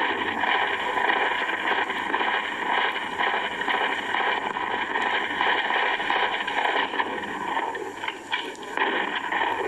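Steady, harsh static-like noise from a corrupted CD video playing through computer speakers, the sound of the damaged disc's audio; it breaks up into choppy stutters near the end.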